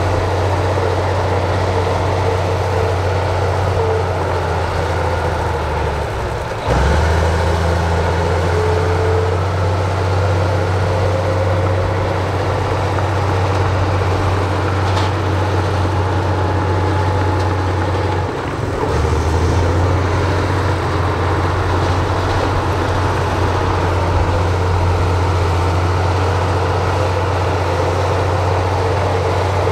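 Diesel engine of heavy earth-moving machinery running steadily with a deep drone. The sound shifts abruptly twice, about a quarter of the way in and again past the middle.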